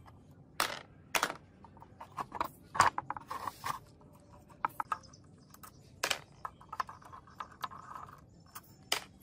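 Scattered metallic clicks and clinks of a spanner and loose bolts being handled on the steel casing of a small four-stroke pump engine during dismantling, with a brief scrape about three and a half seconds in.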